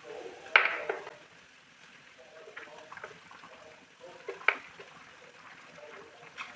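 Sharp knocks of a utensil against the cooking pot, the loudest about half a second in and another about halfway through, with faint liquid sounds as fried climbing perch is added to the simmering curry.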